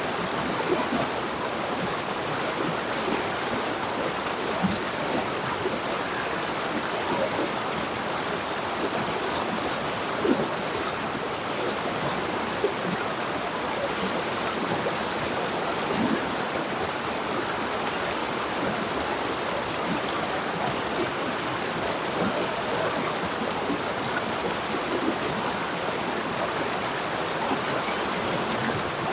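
Jungle river flowing: a steady rush of water with small splashes and gurgles scattered through it.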